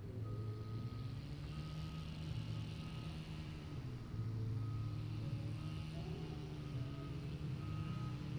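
A vehicle's reversing alarm beeping about once a second, a single steady high tone, over a low steady engine hum.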